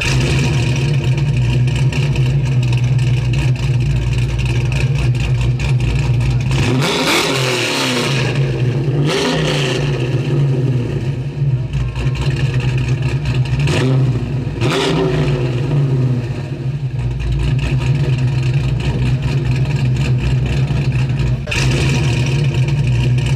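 A car engine runs with a steady low hum, and its pitch sweeps up and down twice, once about a third of the way in and again around the middle.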